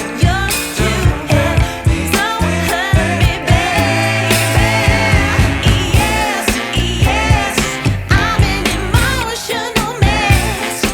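Background pop music with a singing voice over a steady beat.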